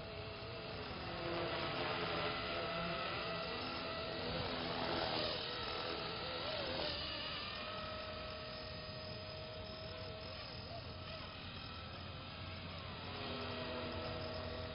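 Blade SR radio-controlled collective-pitch helicopter in flight: a steady whine from its electric motor and gears over rotor noise. The pitch wavers and the sound swells a couple of seconds in and again around five seconds in as it manoeuvres.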